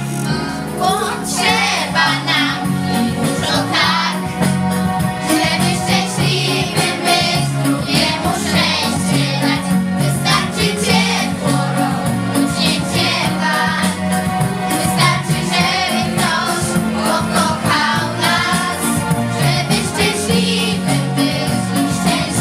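A song playing: singing over an instrumental backing track with a steady bass line.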